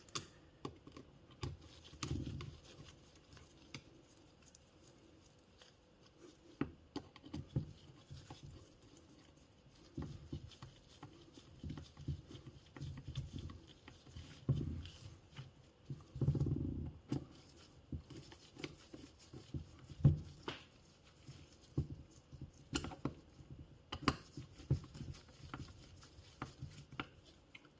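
Scattered small metal clicks, taps and handling knocks as the screws of an e-bike motor's casing are started in lightly by hand and tools are picked up and set down.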